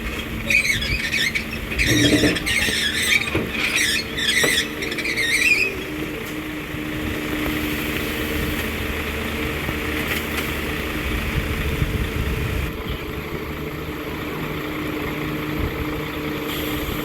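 Caterpillar 320 excavator's steel crawler tracks squealing and clicking as it moves for about the first six seconds, then its diesel engine running steadily.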